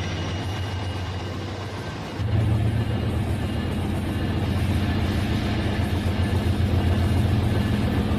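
Battery-powered Rail King toy trains running on plastic track: small electric motors whirring, with wheels and cars rattling along the rails. The sound gets louder about two seconds in, when several trains are running at once.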